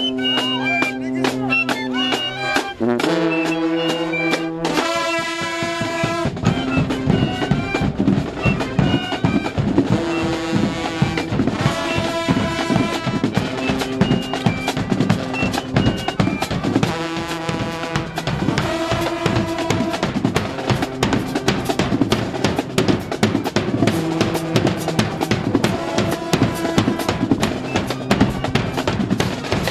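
Marching band playing: brass holding chords over a drumline, with rapid snare strikes and rolls running under the tune. The chords change about three and five seconds in, after which the drumming is dense and continuous.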